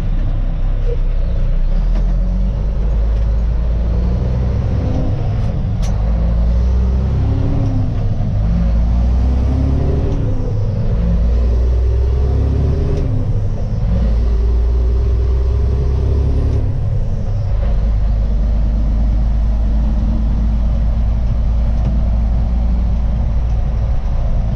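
Mack CH612 dump truck's diesel engine heard from inside the cab, climbing in pitch and dropping back several times as the driver shifts up through the gears of the 10-speed Eaton Fuller transmission, then running steadily over the last several seconds.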